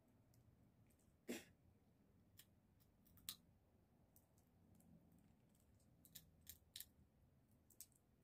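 Scattered sharp clicks and cracks of salted sunflower seed shells being split and peeled by hand, about eight of them at uneven intervals, the loudest about a second and a half in.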